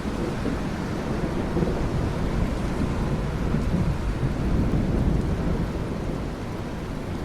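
Steady rain with a low, continuous rumble of thunder that swells a little in the middle.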